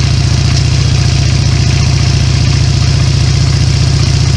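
V-twin cruiser motorcycle engine idling steadily on choke, just after a cold start that struggled on a newly fitted battery.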